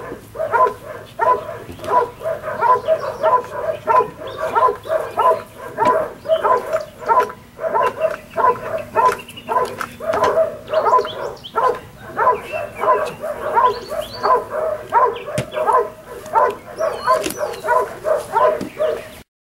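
A dog barking over and over in a steady rhythm, about two to three barks a second. The barking cuts off suddenly near the end.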